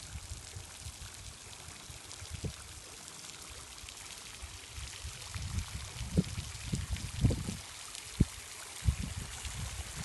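Water running and trickling with a steady hiss, with a few low thumps in the second half.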